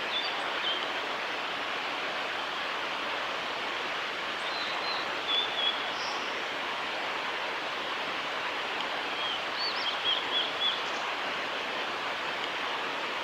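Male blue-and-white flycatcher singing short whistled phrases three times: just after the start, about five seconds in, and about ten seconds in. The song comes over a steady rushing background noise that is louder than the bird.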